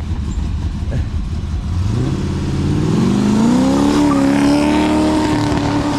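Car engine rumbling at low revs, then revving up steadily about two seconds in and held at high revs until the end.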